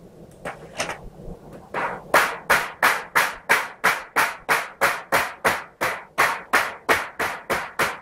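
Hammer blows on a wooden block held against the edge of a clamped roofing-steel sheet, knocking the edge over to fold a drip edge. Two light knocks, then from about two seconds in a steady run of sharp knocks, roughly three a second.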